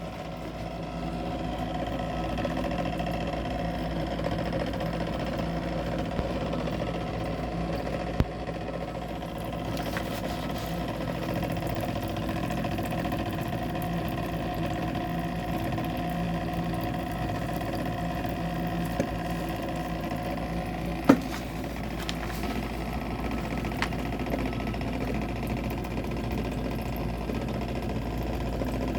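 Lumenis One IPL system running its water-cooling circuit through the handpiece under a leak test: a steady mechanical hum of pump and fan, with a couple of sharp clicks.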